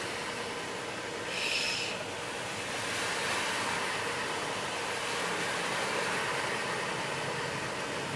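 Steady hiss of car tyres and water on a flooded road, heard from inside a car as oncoming cars splash through the water, briefly louder about a second and a half in.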